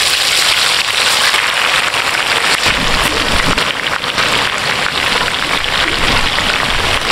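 Hot oil sizzling and crackling loudly as marinated chicken pieces are lowered into the pan one by one to deep-fry.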